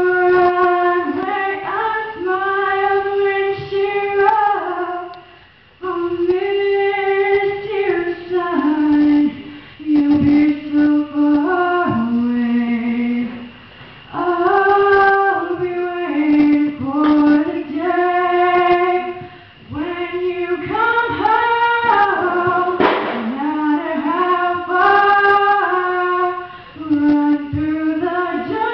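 A young woman singing solo into a handheld microphone, in long phrases with held notes and short pauses between them.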